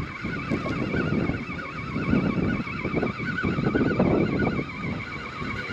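Fishing reel being wound in to check the rig, its gears giving a steady wavering whine, over a low rumble of wind and water.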